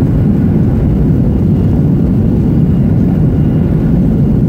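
Steady, loud roar of a Southwest Boeing 737 heard inside the cabin as the jet rolls out fast along the runway after landing, engine and rushing-air noise with a deep rumble and no distinct events.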